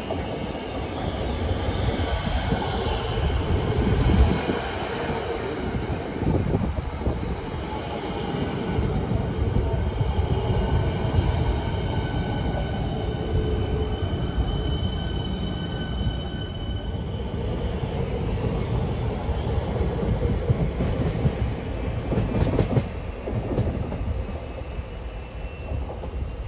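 Siemens Nexas electric suburban train running through the station: a steady rumble of wheels on rails, loudest about four seconds in. Between about ten and seventeen seconds in, a steady high whine of several tones sits over the rumble, which then dies down as the train moves off.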